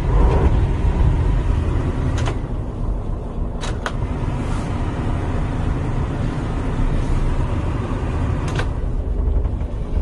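Diesel engine of a 1997 Daewoo concrete mixer truck running steadily with a deep rumble, with a few short sharp clicks over it.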